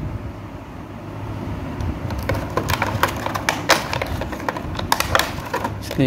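Handling noise of a clear plastic packaging tray: a run of sharp crackles and clicks from about two seconds in as the plastic toy remote control is pulled out of it.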